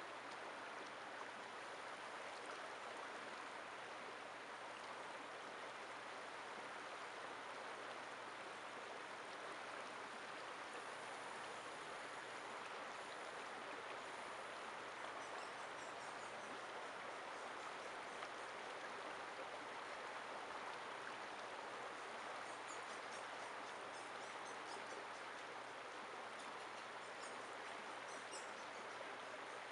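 Shallow river running steadily over rocks, an even rushing of water. Faint high chirps come through about halfway and again toward the end.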